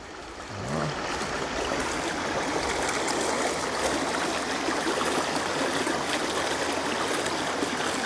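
Mountain valley stream flowing, a steady rush of water that grows louder under a second in and then holds even.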